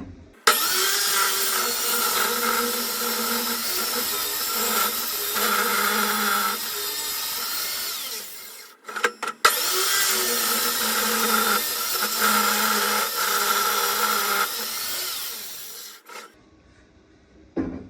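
Circular saw cutting lengthwise into a 2×10 pine board in two runs with a brief stop near the middle, its motor whining steadily under load. Each cut stops short of a pencil mark.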